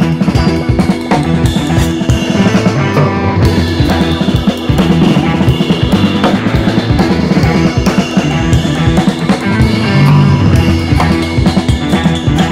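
Background music: a rock-style track with a steady drum-kit beat.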